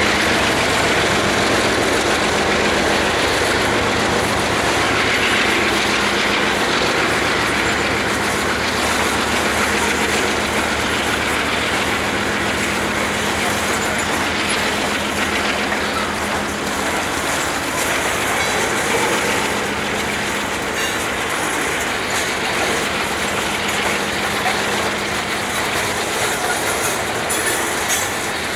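Freight train of covered hopper cars rolling slowly past, a steady rumble of steel wheels on the rails.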